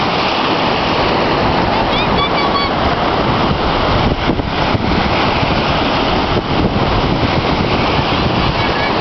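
Sea surf breaking and washing on the shore in a loud, steady rush, with a few faint high chirps about two seconds in.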